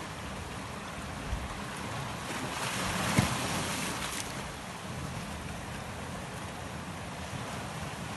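Sea waves washing in over shoreline rocks, with wind on the microphone; one wave surges louder about three seconds in.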